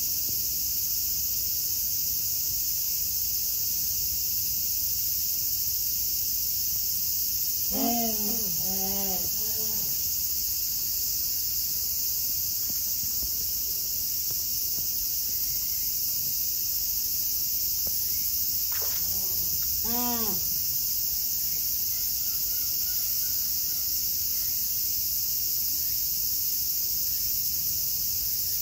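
Steady, high-pitched chorus of insects. Two short bursts of voice-like calls break through, about a third and about two-thirds of the way in.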